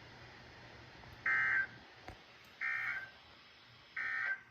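Emergency Alert System end-of-message data tones: three short bursts of the digital 'NNNN' code, each about a third of a second long and spaced about 1.3 seconds apart. They mark the end of the severe thunderstorm warning broadcast on NOAA Weather Radio station KHC27.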